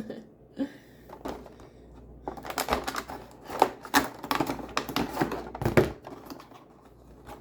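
Quick clicks, taps and crinkles of small plastic and cardboard packaging and miniatures being handled and opened by hand, thickest through the middle of the stretch.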